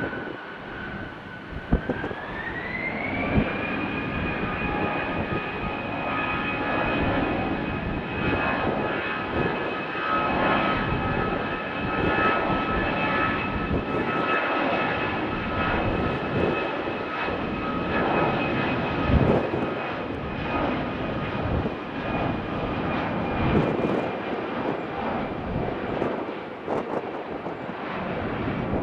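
The twin turbofan engines of an Airbus A319 airliner spool up for take-off, their whine rising in pitch about two seconds in. They then run steadily at take-off thrust, a loud whine over a deep rumble, as the jet rolls down the runway to lift-off.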